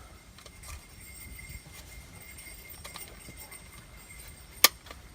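Faint handling of a plastic truck door handle and lock cylinder, then one sharp click near the end as the lock cylinder snaps into place in the new handle.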